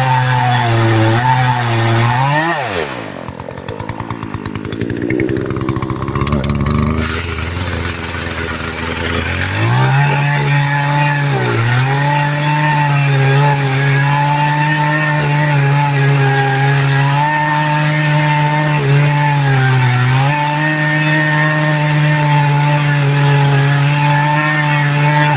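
Two-stroke chainsaw with a new bar and sharp chain cutting through a big white oak trunk at full throttle. About two and a half seconds in the revs fall away and it runs low for several seconds. It then revs back up at about ten seconds and cuts steadily, dipping briefly twice under load.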